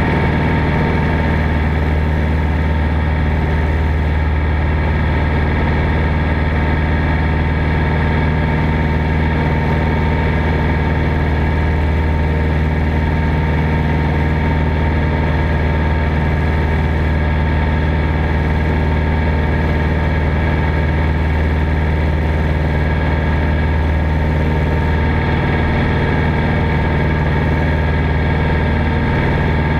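1946 Commonwealth Skyranger's piston engine and propeller running steadily in flight: a loud, even drone.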